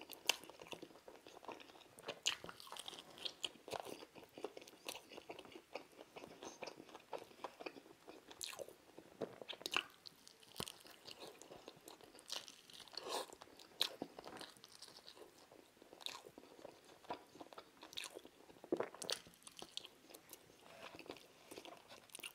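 Close-up crunching and chewing of a KFC fried chicken breast dressed with hot sauce: crisp crackles of the breaded skin under the teeth, with wet chewing between the bites.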